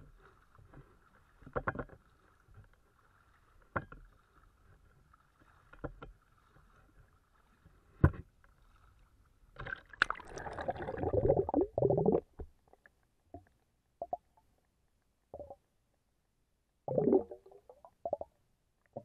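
Camera rig on a PVC frame being lowered into the water, heard from the camera housing: scattered knocks against the frame, then a splash and rushing water for a couple of seconds as the camera goes under about ten seconds in, followed by a few muffled underwater thumps.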